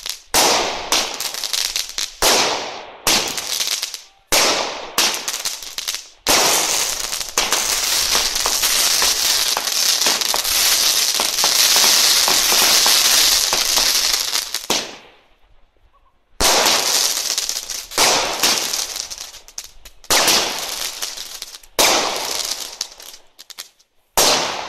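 Weco "Happy Sky" consumer fireworks battery firing. A series of sharp shots, each fading out, gives way to an unbroken stretch of about nine seconds in the middle. After a short pause there are further separate shots near the end.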